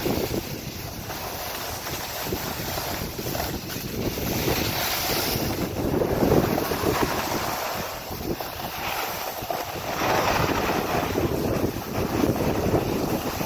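Wind buffeting the microphone while skiing downhill, with the hiss of skis sliding over packed snow; the noise swells and eases unevenly.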